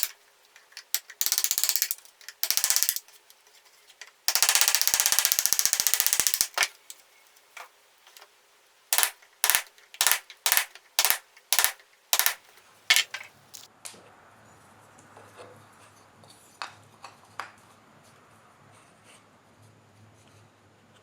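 Bursts of rapid mechanical ratcheting, the longest about two seconds, then a run of sharp single clicks about two a second. It stops about two-thirds of the way in, leaving a faint low hum.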